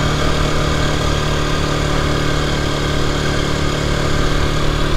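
Aprilia 125 dirt bike's single-cylinder four-stroke engine running at a steady cruising speed, with wind and road noise rushing over the microphone.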